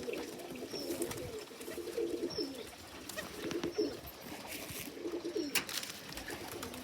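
Racing pigeons cooing, several low, throbbing coos repeating and overlapping, with a couple of sharp clicks.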